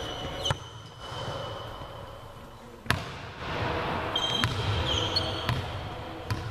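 Volleyballs being struck and bouncing on a sports-hall floor: several sharp smacks with the hall ringing after them, the loudest about three seconds in, plus high squeaks of sneakers on the court.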